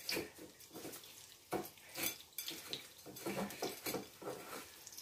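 Kitchen clatter of dishes and utensils being handled: a series of short, scattered knocks and clinks.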